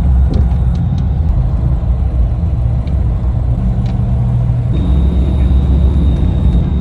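Steady low rumble of a running vehicle, with a thin high tone coming in about five seconds in.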